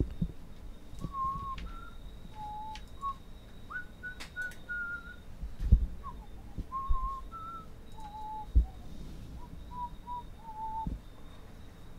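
A person whistling a short tune, a string of held notes hopping up and down. A few dull thumps from handling the camera and card boxes come through, the loudest about six and eight and a half seconds in.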